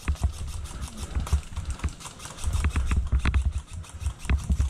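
A rapid, fairly even run of clicks, with repeated bursts of low thumping.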